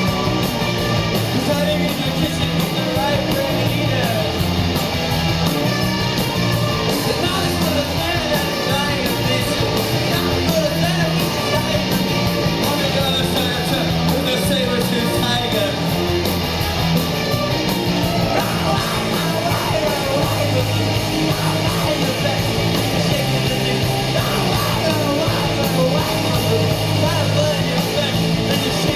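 Rock band playing live and loud: drums, guitars and bass under the lead singer's voice on the microphone, in one continuous stretch of a song heard from the audience.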